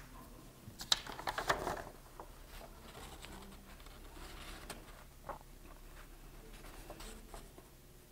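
Coloured pencil shading on paper: faint, quick scratchy strokes and light taps, busiest about a second in and sparser after.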